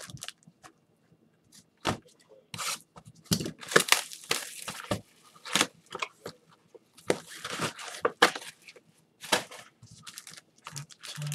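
Plastic wrapping crinkling and tearing by hand in irregular, sharp bursts, as trading-card packaging is opened.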